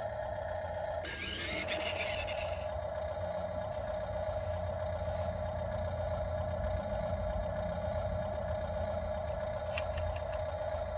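Remote-control toy garbage truck with a steady electronic hum, a short scraping hiss as it drives about a second in, and a few light clicks near the end. Wind rumbles on the microphone.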